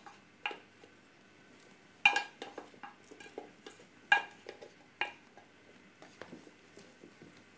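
A wooden spoon knocking and scraping against stainless steel dishware as pieces of cooked stockfish are pushed off a dish into the soup pan. Four sharper clinks ring briefly, the loudest about two seconds and four seconds in, with lighter taps and scrapes between them.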